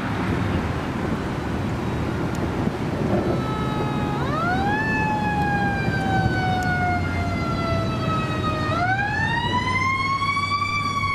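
Fire engine siren over steady traffic noise: the siren sweeps up about four seconds in, falls slowly, then sweeps up again about nine seconds in and holds high.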